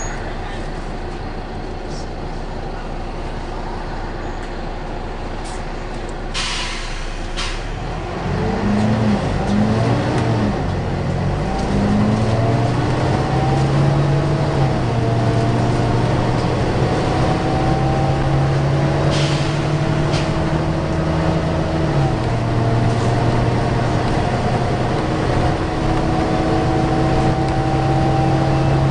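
Volvo B9TL double-decker bus heard from inside, a steady rumble at first with two short bursts of compressed-air hiss about six and seven seconds in. After about eight seconds the diesel engine pulls away, its pitch rising and falling through the gear changes, with a steady whine over it and another short air hiss partway through.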